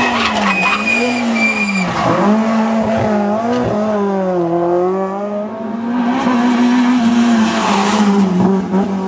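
Rally car engine revving hard through a tight hairpin, its pitch rising and falling with throttle and gear changes, with a brief high tyre squeal in the first couple of seconds.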